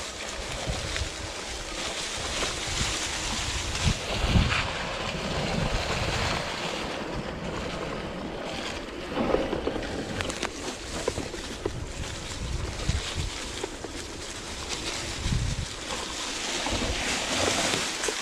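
Wind rushing over the microphone and tyres rolling and crackling over fallen leaves as an e-mountain bike rides a trail, with a few low thumps from bumps along the way.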